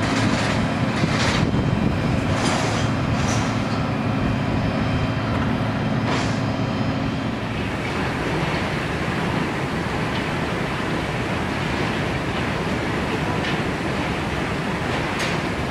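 Airport apron noise: a steady low engine hum with a few short clatters. About seven seconds in it gives way to the steady, even rumble of a terminal baggage hall.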